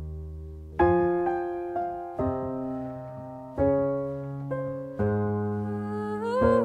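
Piano playing slow sustained chords in an instrumental break of a sad ballad, a new chord struck every second or so and left to ring and fade. A short rising slide comes in near the end.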